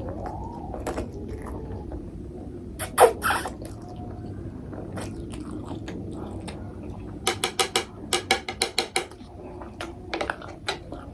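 Close-up mukbang eating sounds: a mouthful of ramen noodles being chewed, with scattered sharp mouth clicks. The loudest click comes a little under three seconds in, and a quick run of about a dozen clicks follows later.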